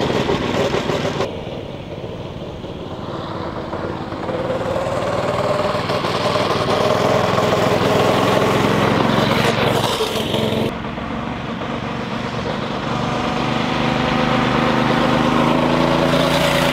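Predator 212 single-cylinder four-stroke engine, still fitted with its governor, running a small go-kart at speed. The engine pitch rises and falls as the kart drives around. The sound cuts abruptly to a quieter take about a second in, and again about eleven seconds in.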